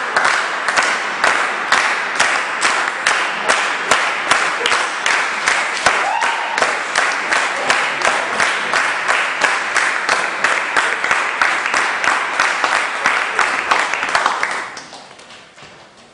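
Audience applauding in a hall, many hands clapping with the claps falling into a fairly even rhythm, then dying away about fifteen seconds in.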